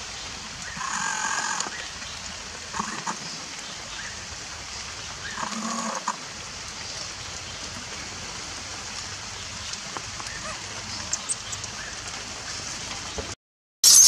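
Steady outdoor hiss, rain-like, with two short faint cries, about a second in and again near six seconds. The sound cuts out completely for a moment near the end.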